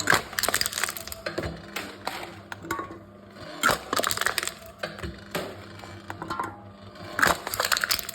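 Aluminium cans being crushed by a can-crushing machine: three bursts of crinkling, crackling metal about every three and a half seconds, with a faint steady low hum between them.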